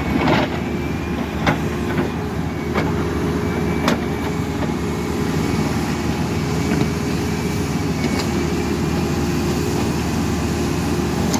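Caterpillar backhoe loader's diesel engine running steadily, with several sharp knocks scattered through.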